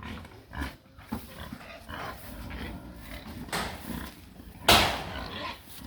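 Pig grunting in short rough bursts, with one loud harsh squeal or bark-like burst a little under five seconds in.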